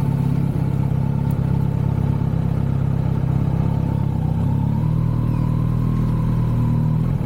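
Kawasaki Z900 inline-four engine running steadily while riding. Its note changes about five seconds in.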